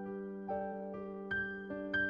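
Background music: a slow keyboard melody, with notes struck about every half second to a second and left to ring.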